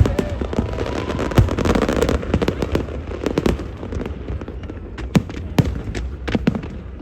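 Fireworks bursting in quick succession: sharp bangs and crackling, thick and continuous over the first few seconds, then thinning to fewer, separate louder bangs near the end.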